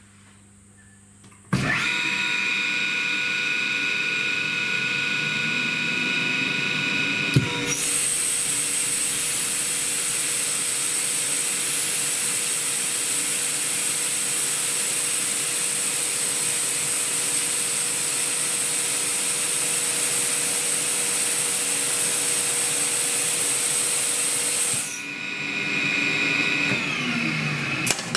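ELGI E05en rotary screw air compressor starting and running unloaded with a steady whine. About seven seconds in it loads with a click and compressed air rushes out of the discharge line, which is vented straight to atmosphere, as a loud steady hiss. Near the end the hiss stops, the compressor unloads and its whine falls in pitch as it winds down.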